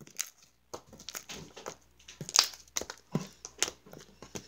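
Hands kneading and pressing sticky slime with fake cereal pieces mixed in, giving irregular wet clicks and popping squelches, the loudest a little past the middle.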